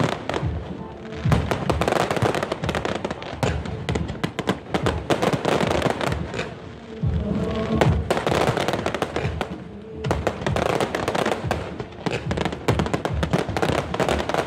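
Aerial fireworks bursting and crackling in dense, irregular volleys, swelling louder in waves, with music playing underneath.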